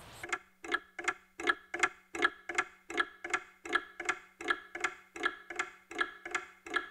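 A clock ticking steadily, a little under three ticks a second, over a faint low hum.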